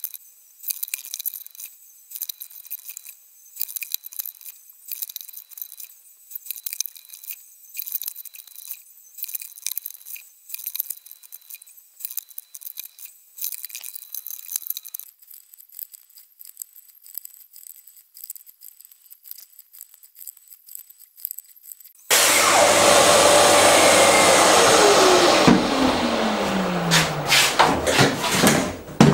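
Faint, scattered light clicks and ticks, then, about 22 s in, a Festool plunge-cut track saw starts suddenly and runs loud while trimming rough-sawn oak along a guide rail. Over the last few seconds its blade spins down in a falling whine.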